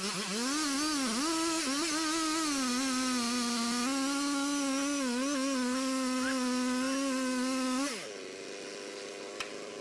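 Chainsaw engine revved to full throttle and held for about eight seconds, its pitch wavering up and down, then falling away suddenly. A quieter steady hum with a few clicks follows.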